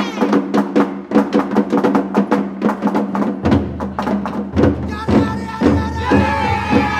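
Japanese festival hayashi music played on a dashi float: rapid percussion strikes, about five a second, over a steady low tone. A long held high note joins about five seconds in.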